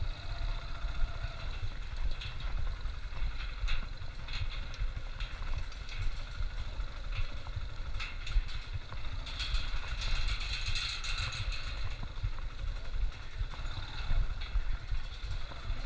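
Motorcycle ridden slowly with its engine running at low revs, over scattered clanks and rattles from the slatted metal deck of a suspension bridge, with a busier patch of rattling a little past halfway.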